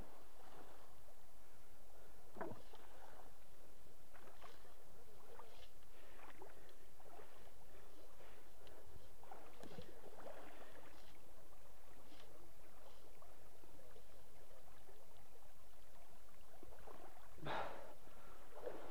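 Someone wading through a shallow, pebbly stream, with water splashing at irregular steps every second or two and a louder splash near the end.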